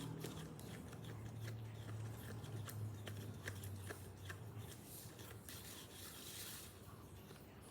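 Faint irregular rubbing, scraping and clicking of a small closed container of slime mixture being shaken and handled.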